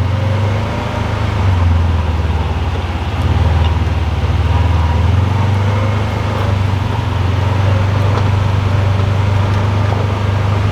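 Kawasaki Mule PRO side-by-side utility vehicle being driven, its engine running with a steady low drone.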